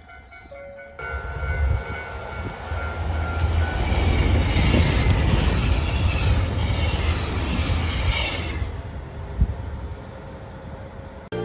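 Snow-covered local train arriving: wheels rumble on the rails with a rushing hiss that swells and then fades. One sharp knock comes near the end.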